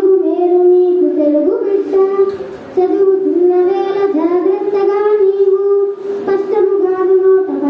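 A child singing a Telugu padyam (classical verse) solo in a melodic chant, drawing the syllables out into long held notes with short breaths between phrases.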